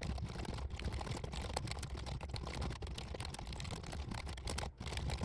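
Fast typing on a computer keyboard: a dense, continuous stream of key clicks, with a brief break about four and a half seconds in.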